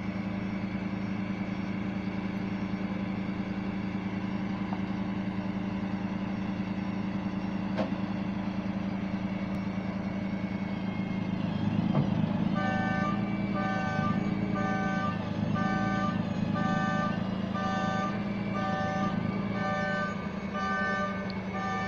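Tow truck engine running steadily, and from a little past halfway a backup alarm starts beeping, about once every 0.7 seconds.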